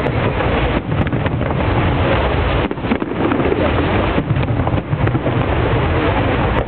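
Fireworks display going off in a dense, continuous rumble and crackle, with wind buffeting the microphone.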